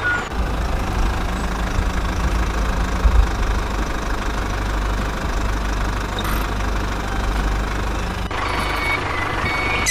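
Mini tractor running with a steady, low, engine-like drone. About eight seconds in, a few higher tones join it.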